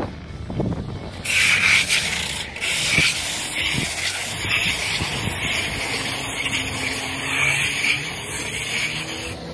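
Flat trowel scraping and rubbing as it skims a thin coat of cement-based patching and resurfacing mortar across a concrete sidewalk. The passes start about a second in and run on, swelling and easing with each stroke.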